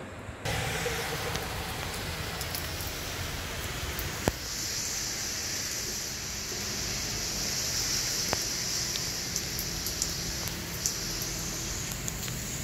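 Steady rainfall, an even hiss that gets brighter in the middle for several seconds, with a few sharp taps, the loudest about four seconds in.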